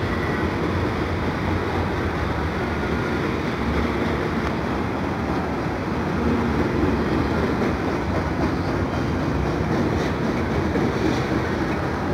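Freight train of autorack cars rolling past, a steady noise of steel wheels running on the rails.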